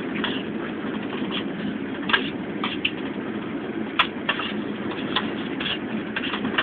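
Steady low rumble of a moving passenger train heard inside its compartment, with irregular light clicks and clinks of cutlery on food trays, one of them sharp about four seconds in.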